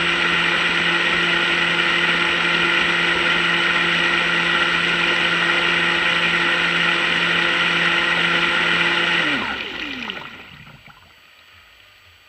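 RC boat's 2075kV brushless electric motor running flat out with a steady high whine and rushing water, then throttled off about nine seconds in, its pitch falling as it spins down and fades.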